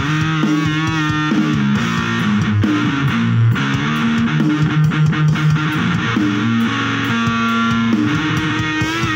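Electric guitar being played: a run of held notes and chords, with wavering vibrato on high notes just after the start and again near the end.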